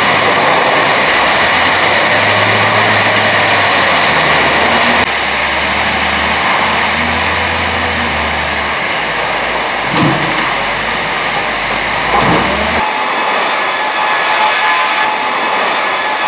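Wheel loader's diesel engine running while it handles logs, with two sharp knocks about ten and twelve seconds in. After that the sound changes abruptly to the thinner, steady running of the sawmill line's log conveyors.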